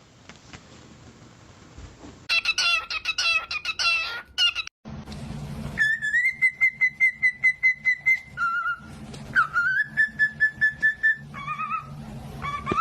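Cockatiel chirping and whistling: a burst of rapid warbling chirps, then long high whistled notes that pulse about four times a second, and a few short two-note chirps near the end.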